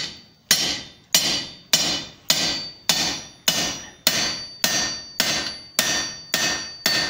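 Blacksmith's hammer striking a red-hot Claydon clamp, a square-pipe box set on the diagonal over two rods crossed at right angles on the anvil. The blows come in an even rhythm of a little under two a second, each with a short metallic ring. The hammering drives the hot box down over the rods to set the clamp.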